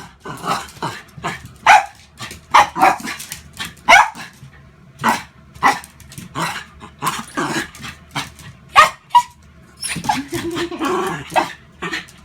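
Jack Russell terrier barking again and again in short, sharp, irregular barks, worked up in play by a flashlight beam. A longer, lower rough sound about ten seconds in.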